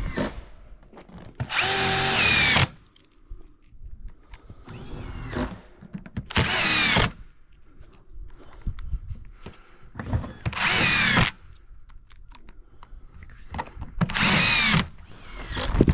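Power drill running in four short bursts of about a second each, a few seconds apart, its motor pitch sweeping within each burst.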